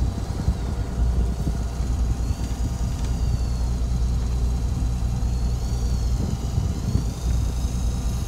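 Fishing boat's engine idling with a steady low hum, with a faint high whine that rises and falls a few times above it.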